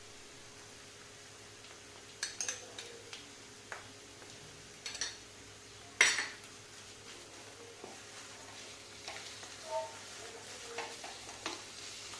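Wooden spatula stirring and scraping a thick, dry grated bottle gourd mixture in a nonstick wok, with scattered light knocks of utensil on pan. The sharpest knock comes about halfway through, and the stirring becomes busier near the end.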